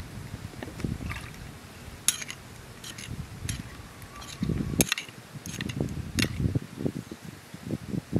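Metal spoon stirring and scooping a thin chilli dipping sauce in a small ceramic bowl, with several sharp clinks against the bowl. Irregular low rumbles run underneath, loudest around the middle.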